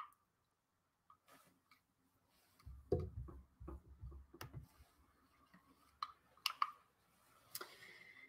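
Faint scattered clicks and taps, with a run of low bumps about three to four and a half seconds in.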